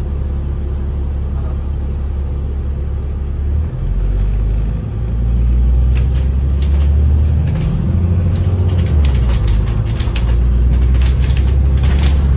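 Double-decker bus heard from inside the cabin: a heavy, steady engine drone that dips and shifts about four and five seconds in, then runs louder as the bus moves along. Sharp rattles and clicks from the bodywork come in from about six seconds on.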